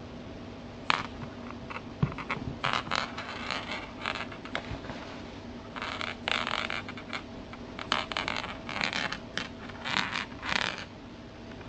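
An irregular series of short scraping and scratching sounds, starting with a sharp click about a second in, over a faint steady hum.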